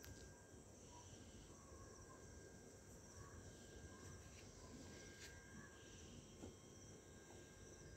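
Faint, steady chirping of night insects, with a few faint clicks.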